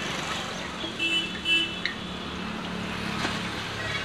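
Roadside traffic noise with vehicles running past, and a brief vehicle horn honk about a second in.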